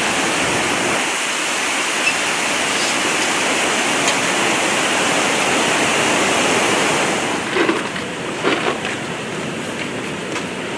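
River water pouring over a concrete weir: a steady rush of falling water. It drops away about seven seconds in, leaving a quieter hiss and a few short bumps.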